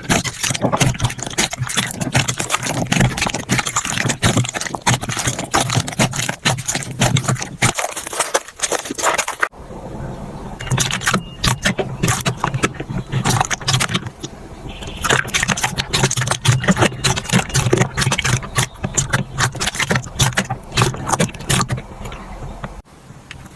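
Slime being squeezed, pressed and poked by hand, giving a dense run of crackling, popping clicks, with abrupt changes where one clip cuts to the next.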